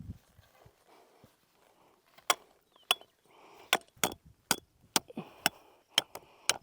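Sledgehammer blows driving a target stake into the ground: about ten sharp, hard strikes at roughly two a second, starting about two seconds in, some with a short metallic ring.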